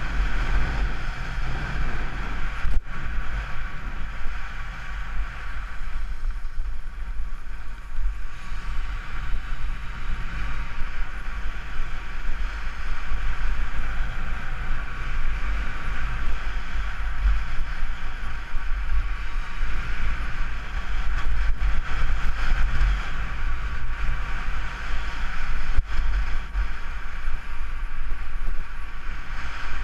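Skis scraping over packed snow on a downhill run, with wind buffeting a helmet-mounted GoPro microphone as a steady low rumble.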